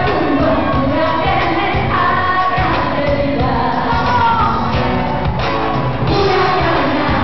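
Live pop music: a woman singing into a microphone over a full band backing, heard from within a concert crowd.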